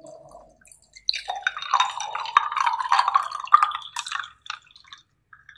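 Bottled tea being poured from a plastic bottle into a wine glass, a splashing pour that starts about a second in and runs for about three seconds.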